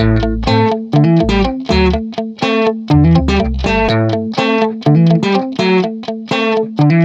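Background music: a guitar plucking a quick, repeating run of notes, over low bass notes that stop about four seconds in.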